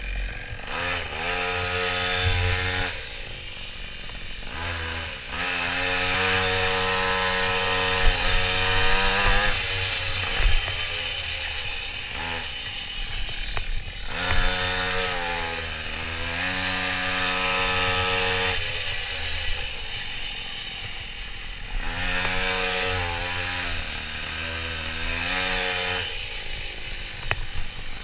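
A minimoto's small two-stroke engine, heard on board, revving hard and high, then dropping off, again and again as it accelerates and backs off for corners. A few short knocks.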